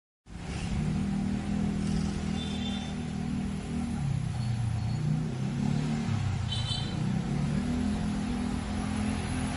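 Busy street traffic: car engines running and passing in a continuous rumble that shifts in pitch. Two brief high-pitched squeaks cut through, about two and a half seconds in and again near seven seconds.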